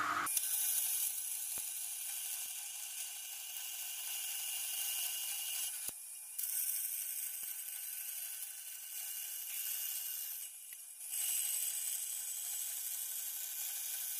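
Metal band saw cutting through the steel plate of an old circular saw blade: a steady, high, hissing cut that briefly dips twice.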